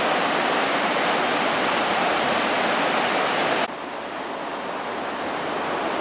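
Small waves breaking on a beach, a steady even rush of surf. A little after halfway through it drops suddenly in level and turns duller, then slowly builds again.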